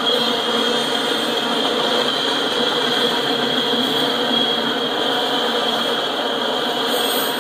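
Freight cars rolling past on steel wheels: a steady rolling rumble and rattle with a constant high tone over it.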